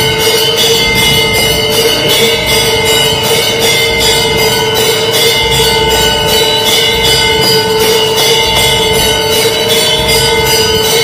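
Temple bells rung rapidly and without pause for aarti: fast, even clanging strikes, about three to four a second, over a sustained metallic ringing.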